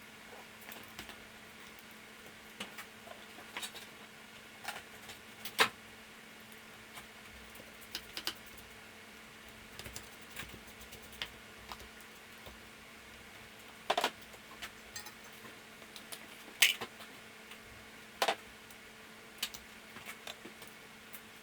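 Irregular metallic clicks and clinks of hand tools and small parts being handled during an engine teardown, a few of them sharper and louder, over a steady low electrical hum.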